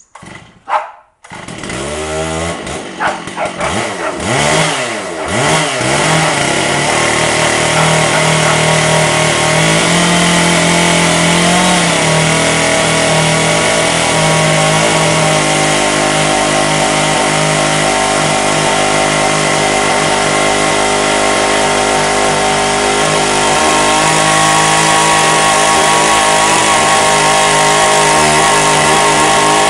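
A chainsaw mounted in a chainsaw mill is pull-started. It catches about a second and a half in and is revved up and down for a few seconds, then runs loud and steady at full throttle as the bar rips lengthwise through a redgum slab.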